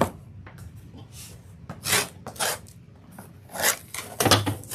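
Vinyl LP record jackets rubbing and sliding against each other as they are handled, in a few short scraping rubs.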